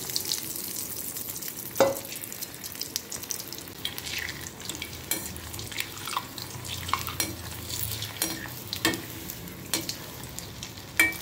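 A breadcrumb-coated potato cheese ball deep-frying in hot oil in a steel kadai, sizzling with a steady hiss and small crackles. A slotted steel ladle moves through the oil and knocks sharply against the pan about two seconds in and again near the end.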